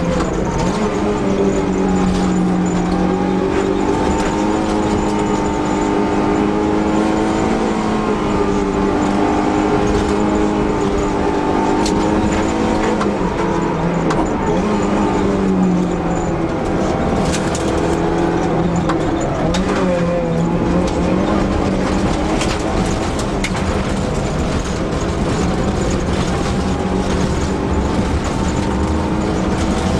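Fiat Seicento Sporting Abarth rally car's four-cylinder engine running hard at high revs, its pitch rising and falling through gear changes and lifts, with a few sharp clicks around the middle.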